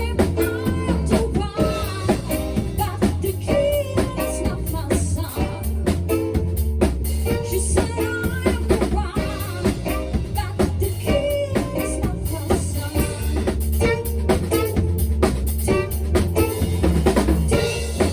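A live band playing a song: a drum kit keeps a steady beat with kick and snare under bass and a singing voice.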